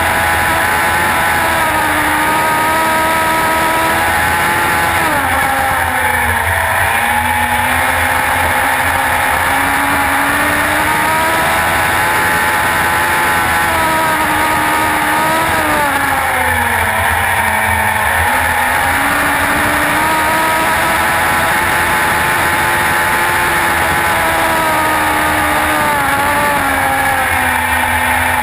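Suzuki Hayabusa inline-four motorcycle engine of an autograss special, heard onboard, running hard at high revs on the dirt track. The revs drop for corners about six and seventeen seconds in and again near the end, then climb back up each time.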